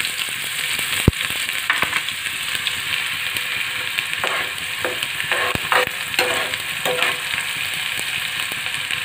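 Chopped onions sizzling in hot oil just after going into the pan, with a wooden spoon stirring and scraping against the pan several times.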